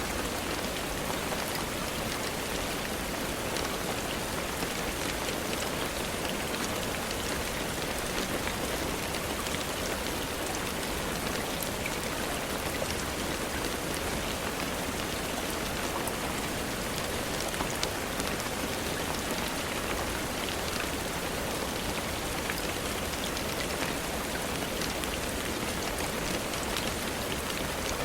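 Steady rain falling, an even hiss with scattered drops ticking on a surface, unchanging in intensity.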